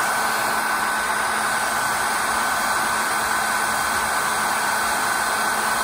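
Conair Cord-Keeper 1600 hair dryer blowing hot air steadily, a constant rush of air with a steady high whine from its motor and fan.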